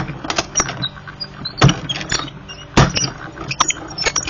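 Manual die-cutting machine being cranked to run a cutting die and thick cardstock through its rollers again, with squeaks and rapid clicks. Two heavier knocks come about a second apart near the middle.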